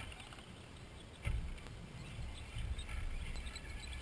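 Wind rumbling on the microphone in uneven gusts, picking up about a second in, over faint scattered high clicks and chirps.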